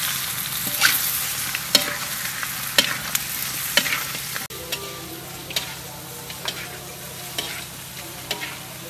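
Whole shrimp sizzling in a hot wok, loudest just as they go in. A metal spatula stirs the pan, knocking and scraping against the wok about once a second.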